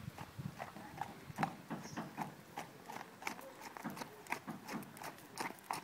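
Horse's hooves striking packed dirt at a lively gait: a steady run of hoofbeats at about three a second.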